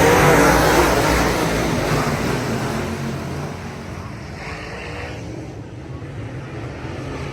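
Race cars running on the track, loud at first and then fading away over a few seconds as they pass and move off.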